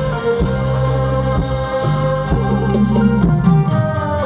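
Live mor lam band music: held chords under scattered sharp drum strokes, with a wavering low melody line in the second half.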